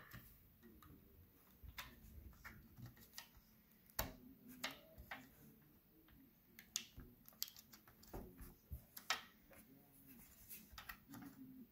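Faint, scattered clicks and light knocks of a laptop's parts being handled and fitted back into place, with a few louder taps about four seconds in and again about nine seconds in.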